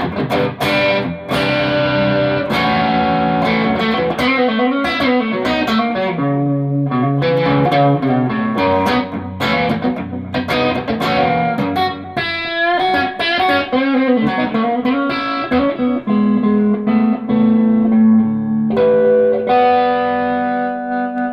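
Ivison Dakota electric guitar with Sunbear Sunbird (Firebird-style mini-humbucker) pickups, played through an amp: a run of picked single notes and chords, with a wavering bent note a little past halfway, ending on held ringing chords.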